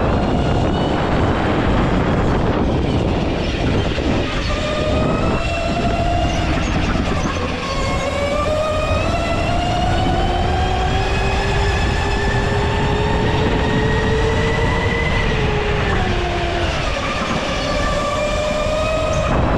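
Go-kart's drive heard from onboard: a whine over a steady rumble that sags and picks up through the bends, climbs in pitch for several seconds as the kart speeds up along a straight, then drops quickly near the end as it slows.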